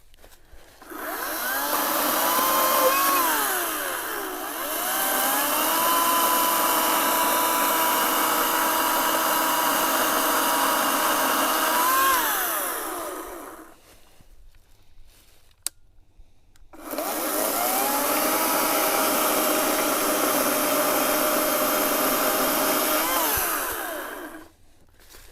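Echo ECCS-58V battery chainsaw cutting through dry hickory limbs: an electric motor whine that sags in pitch under load early in the first run, picks back up, then winds down. After a short pause with a single click, a second run of several seconds, also ending in a wind-down.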